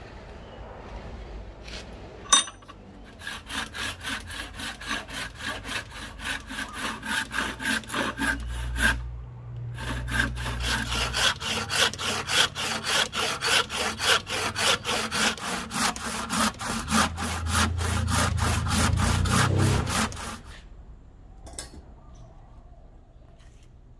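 Hand saw cutting across a clamped Siamese rosewood blank with steady back-and-forth strokes, sawing a row of relief kerfs down to the marked handle outline. A sharp ringing clink comes just before the sawing starts, and the strokes pause briefly about nine seconds in, then resume faster until about twenty seconds in.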